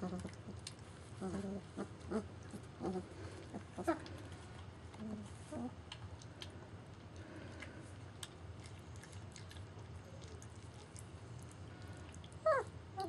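German Shepherd puppies play-fighting: a string of short yips and grunts in the first six seconds, and a yelp falling in pitch near the end, over faint rustling and clicking.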